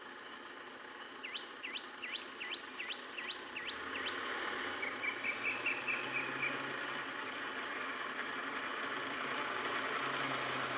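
Insects chirping in a steady, fast high-pitched pulse, with a bird calling a quick run of about eight sweeping whistled notes in the first few seconds and a brief trill later. A vehicle engine's low hum comes in from about four seconds in and grows slightly louder.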